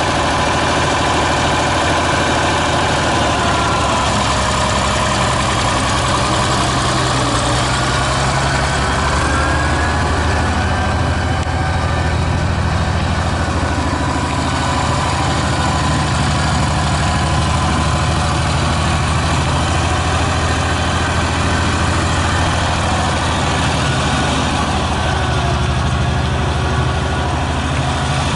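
Farmall 706 tractor engine running steadily at low speed as the tractor drives slowly.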